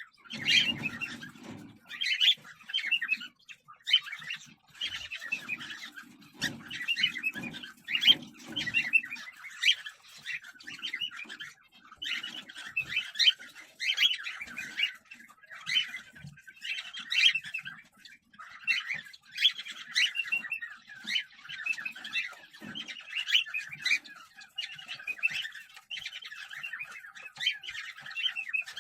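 Cockatiels chirping and squawking in short raspy bursts, about one a second, with low muffled rustling near the start and again from about five to nine seconds in.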